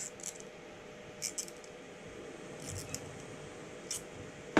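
Small sharp metallic clicks and ticks in little clusters as tiny metal pins and a small hand tool work against a small black track part, with a louder knock at the very end.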